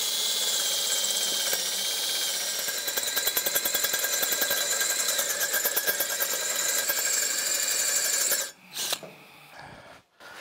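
Cordless DeWalt drill boring out a broken stainless exhaust stud in a cylinder head. The bit whines as it cuts, and a rapid chatter sets in about three seconds in. The drill stops abruptly about eight seconds in, with one brief burst of drilling just after.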